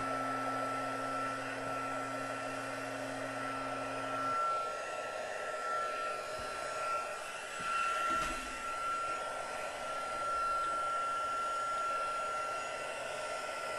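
Embossing heat gun running steadily, a constant blowing rush with a high whine, as it heats embossing powder on a card until it melts.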